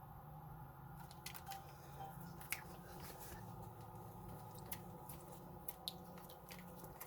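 Tractor engine droning steadily, heard from inside the cab. From about a second in there are scattered sharp clicks and crackles.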